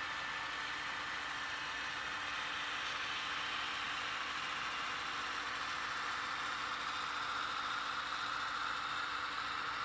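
Onboard sound of sound-equipped HO scale model diesel locomotives under way: a steady engine sound from the small decoder speakers, with a higher whine that grows a little stronger in the second half.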